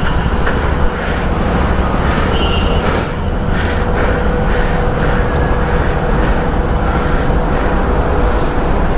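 A motorcycle idling in a road tunnel: a steady, loud low rumble with a faint steady hum above it, unbroken throughout.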